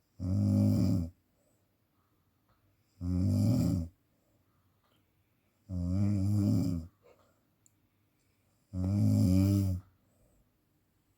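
A person snoring: four loud snores of about a second each, one roughly every three seconds, with quiet breathing gaps between them.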